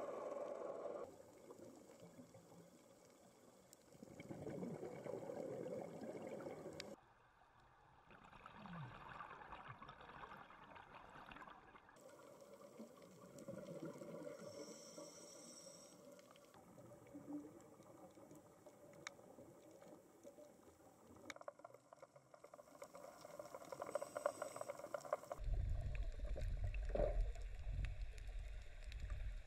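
Muffled underwater sound picked up through a camera housing: faint water noise that changes abruptly several times, with a loud low rumble in the last few seconds.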